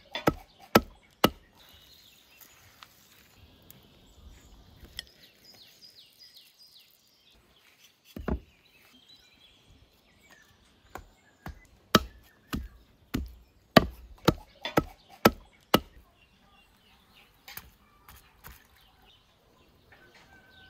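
Heavy cleaver chopping raw lamb on a wooden tree-stump block: sharp chops in bursts, a few at the start, a single one about eight seconds in, then a quick run of about a dozen between about eleven and fifteen seconds, with a few lighter taps after.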